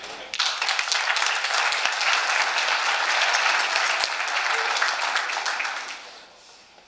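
Audience applauding: dense clapping that starts suddenly, holds steady, and dies away near the end.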